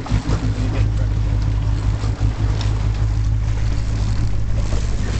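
Fishing boat's engine running with a steady low drone, with a few light knocks on the boat.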